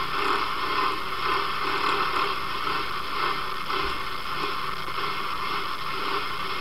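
A recording of an unexplained outdoor rumbling drone: a steady hiss with a faint wavering hum beneath it, almost like a train or a locomotive.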